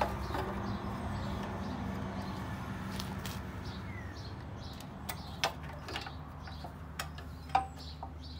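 Several sharp plastic clicks and knocks, a second or two apart and loudest past the middle, as a plastic Briggs & Stratton carburetor and fuel-tank unit is handled and pushed onto the mower engine's intake. Birds chirp faintly over a low steady background rumble.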